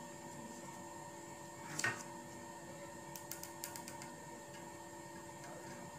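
Light taps and clicks from a felt-tip marker drawing on paper over a glass-topped table, with one sharper knock about two seconds in and a quick run of small clicks a little later, over a steady room hum.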